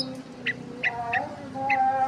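Small birds giving a regular series of short chirps, about three a second, with a faint steady tone underneath.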